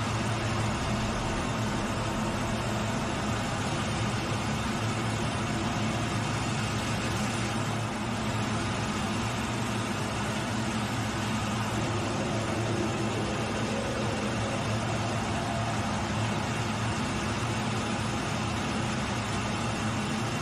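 Steady cockpit noise of a military jet in flight: a constant rush of engine and airflow with a low, even hum underneath.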